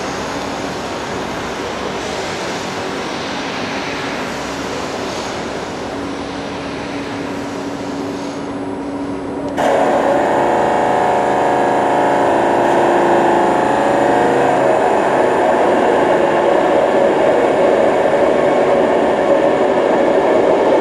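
Steady mechanical running noise with a low hum and several held tones, stepping up abruptly and getting louder and fuller about ten seconds in.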